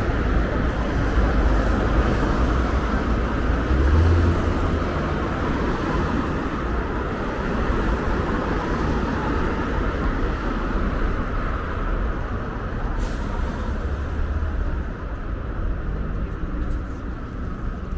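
Steady road traffic: vehicles passing close by in a continuous low rumble, with a heavier low rumble about four seconds in.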